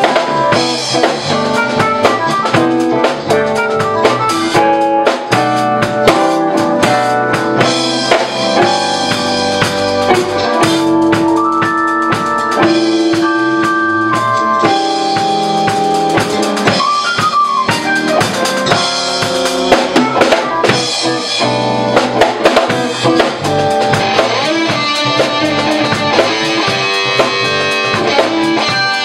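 Small live band playing: a drum kit keeping the beat under electric keyboard, electric bass and electric guitar.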